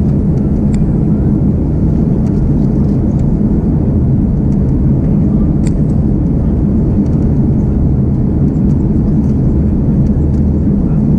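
Cabin noise of an Airbus A330-200 taxiing on the ground: a steady low rumble from the engines and the rolling airframe, with a few faint ticks.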